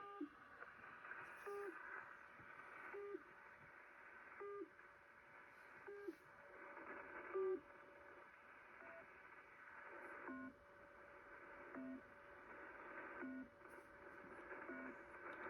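Shortwave signal on 4635 kHz heard through a Kenwood TS-850SAT receiver: short, faint beeps repeating about every one and a half seconds over receiver hiss. After about ten seconds the beeps drop to a lower pitch.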